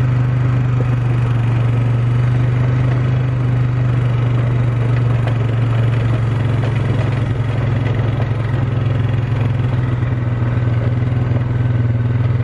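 ATV (four-wheeler) engine running at a steady speed while being ridden, heard from the rider's seat: a loud, even low engine drone with no revving.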